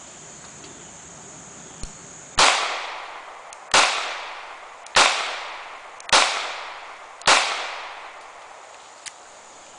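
Five shots from a Charter Arms Pit Bull double-action revolver in .40 S&W, fired evenly about a second and a quarter apart, each report followed by a fading echo. It is firing 180-grain Hornady XTP hollow-point loads at about 850 feet per second.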